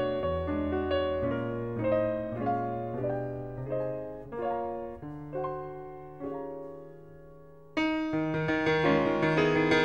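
Background piano music: a steady run of notes that thins out and fades about six seconds in, then comes back suddenly louder and fuller near the end.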